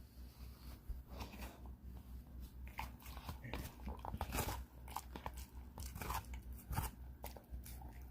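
Pitbull eating watermelon, with wet crunching bites and chewing in an irregular series of crunches.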